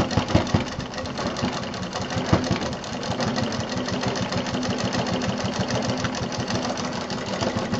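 Black domestic sewing machine running steadily, its needle stitching fast and evenly through a seam in quilted fabric.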